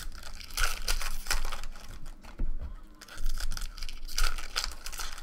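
Foil trading-card pack wrappers being torn open and crinkled by hand, in several irregular bursts of rustling.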